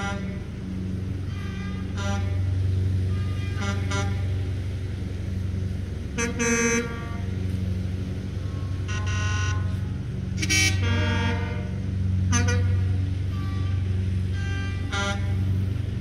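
Car and truck horns honking again and again from a line of vehicles pulling out, mostly short toots with a few longer blasts, over a steady low engine rumble close by.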